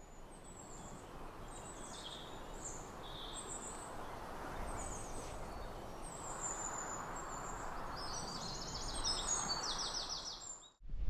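Wild birds chirping in short, scattered high calls over a steady outdoor hiss, with a quick trilled song near the end.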